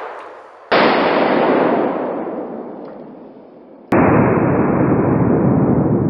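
A .44 Magnum round fired from a Chiappa X-Caliber adapter insert in a 12-gauge single-barrel shotgun: the shot's boom fades out, then is replayed in slow motion twice, about a second in at a lower pitch and again near four seconds at a still deeper pitch. Each replay has a long fading tail.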